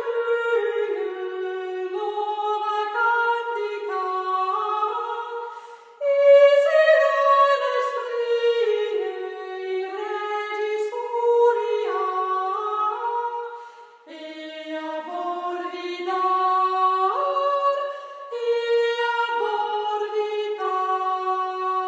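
Unaccompanied voices singing a slow melody of long held notes in three phrases, with short breaks about six and fourteen seconds in.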